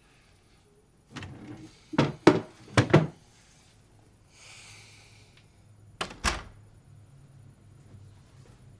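A bathroom door being handled: a quick run of sharp clicks and knocks about two seconds in, a brief soft rustle, then two heavier knocks about six seconds in, the second with a low thud.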